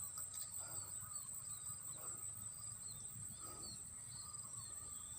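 Steady high-pitched drone of insects, with scattered faint short chirps.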